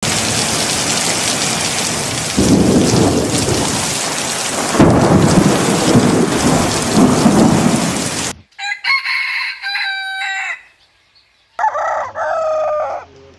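Heavy rain with loud rolls of thunder, one about two seconds in and another about five seconds in. About eight seconds in, the rain cuts off suddenly and a rooster crows twice.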